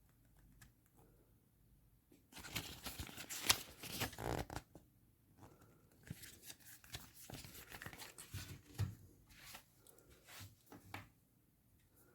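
Packaging being handled: a couple of seconds of tearing and rustling, then scattered rustles and light clicks as items are handled.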